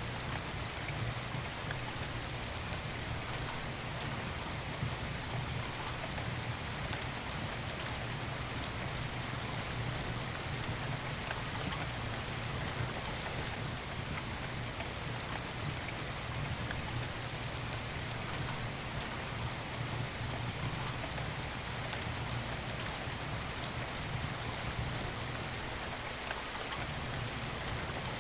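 Steady rain falling, an even, unbroken patter, with the occasional faint crackle of a wood fire in a fireplace.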